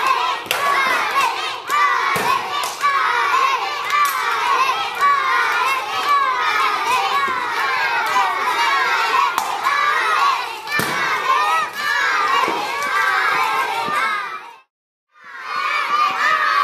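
Crowd of schoolchildren shouting and cheering without pause, with a few sharp knocks of weapons striking wooden shields in a sparring bout. The sound drops out completely for about half a second near the end, then the shouting resumes.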